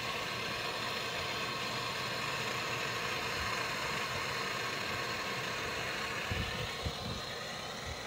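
Hand-held gas brazing torch on a screw-on cylinder burning with a steady hiss while heating a copper refrigerant pipe joint. A few dull low thumps come about six to seven seconds in.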